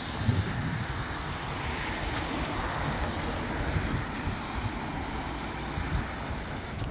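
A steady rushing noise with no clear pitch or rhythm.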